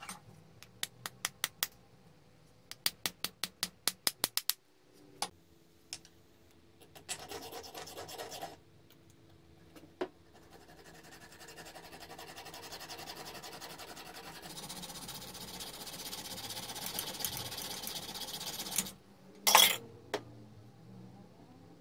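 Two quick runs of sharp metal taps, then a small hacksaw sawing through the protruding end of a cross pein hammer's wooden handle and copper wedge clamped in a vise, the strokes growing louder over several seconds before stopping. A single loud knock follows near the end.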